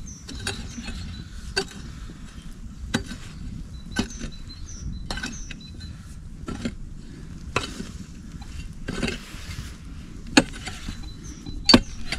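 A hand digging tool striking the packed earth and stones of a grave pit's floor, about once every second and a quarter, with soil scraping between blows; the two hardest strikes come near the end.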